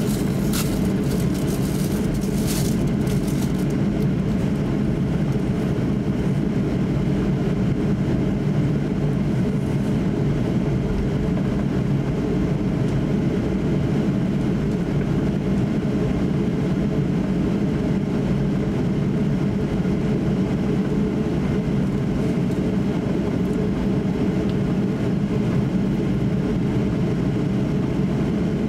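Cabin noise inside a Boeing 737-800 taxiing: the steady, deep drone of its CFM56 turbofan engines at taxi thrust. A couple of light clicks come in the first few seconds.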